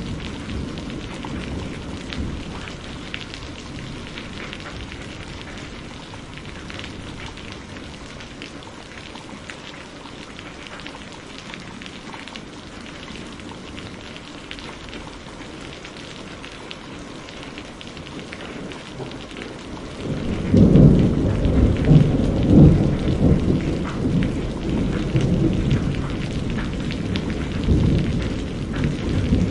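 Steady rain falling during a thunderstorm. About two-thirds of the way through, a loud, low thunder rumble comes in, swelling and easing several times and still going at the end.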